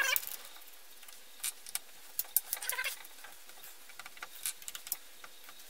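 Small clicks and taps from hands handling a Bosch 12V impact driver's plastic housing and its T9 Torx screws, the screws laid down on a cardboard work surface, with a couple of short squeaks.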